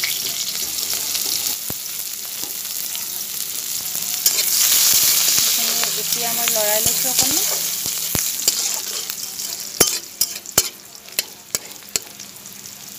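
Sliced onions sizzling in hot oil with panch phoron in a metal pan, stirred with a spatula. The sizzling is loudest in the middle, then quieter after about ten seconds, with several sharp clicks of the spatula against the pan.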